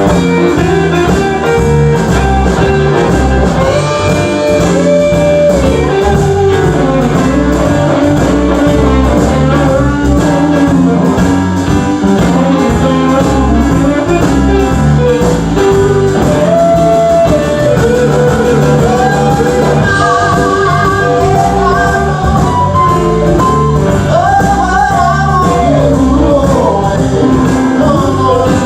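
Live band playing a blues-rock jam: a singer over guitar, with a steady beat.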